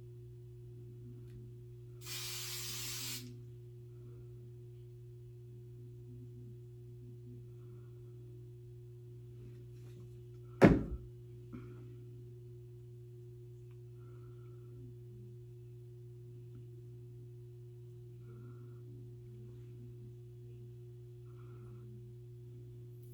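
A one-second spray of aerosol hairspray about two seconds in, then a single sharp knock about ten seconds later, over a steady low hum.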